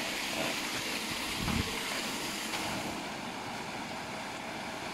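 Paddlewheel aerator churning and splashing the water of a saltwater fish pond: a steady rushing noise, with a brief low thump about a second and a half in.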